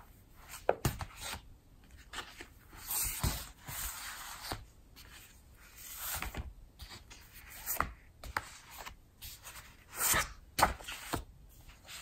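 Softcover art books being handled on a table: paper covers and pages rustling and sliding, with several light taps and knocks scattered through.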